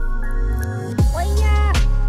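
Background music with heavy bass, sustained tones and a gliding melodic line, punctuated by drum hits about a second in and again near the end.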